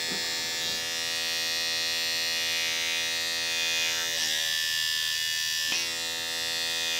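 Handheld pore vacuum cleaner's small electric motor running with a steady high whine, its pitch shifting briefly a few times as it works over the skin.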